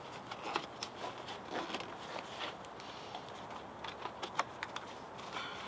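Hands working a tubeless mountain bike tire bead onto the rim: scattered small clicks, taps and rubbing of rubber against the rim.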